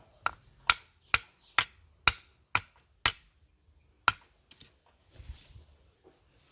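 Hard blows striking a stone to crack open its stony shell: sharp knocks about two a second, seven in a row, then after a short pause one more and a couple of lighter taps.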